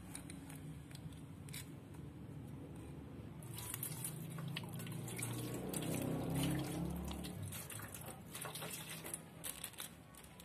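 Water poured from a plastic container onto plastic power-drill housings lying in a metal tray: splashing that builds to a peak in the middle, then scattered drips and patters as the pour stops.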